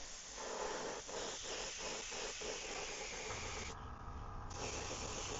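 Airbrush spraying silver paint over a scale pattern: a steady hiss of air and paint that eases off briefly about four seconds in, then resumes. A low hum joins about three seconds in.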